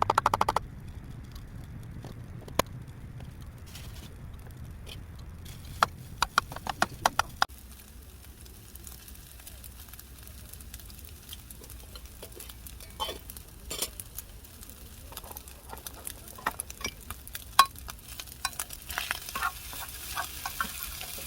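Kimchi fried rice being cooked in a pan: scattered taps and scrapes of a spatula stirring, with a quick rattle of clicks at the start and a sizzle that grows louder near the end.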